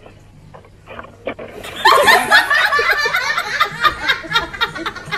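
Loud laughter breaks out about two seconds in after a fairly quiet start, then goes on in quick rising and falling peals.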